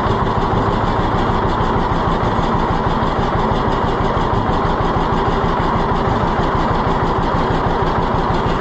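Tractor engine running steadily at idle, its firing even throughout.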